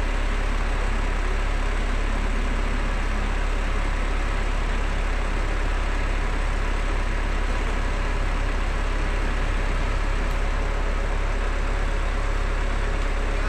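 Sewer-cleaning truck's engine and pump running steadily with a deep low hum, working the hose down the manhole to draw the water out.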